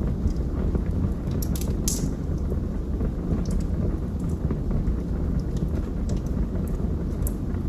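Wood fire burning in a fireplace: a steady low rumble from the flames, with scattered sharp crackles from the burning wood, a few every couple of seconds.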